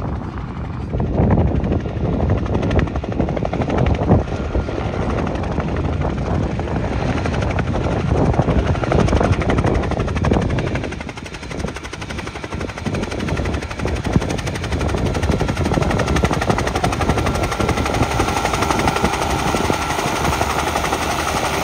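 Helicopter rotor blades chopping close by as it comes in to land, a fast, steady beat with a short dip in loudness about halfway.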